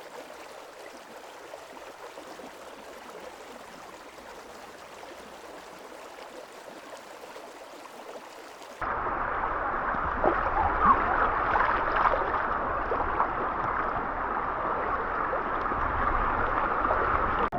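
Steady rush of river water, with an edit about nine seconds in to a louder, closer and duller rush of water.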